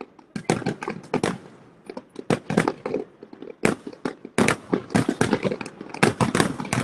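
Fireworks going off in a rapid, irregular string of sharp bangs and crackles, several a second, coming thicker in the second half.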